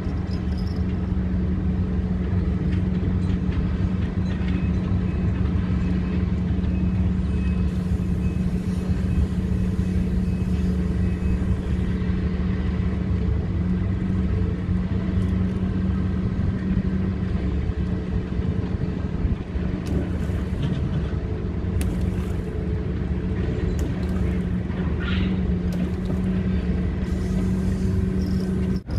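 A steady low engine hum with heavy rumble, holding one pitch throughout.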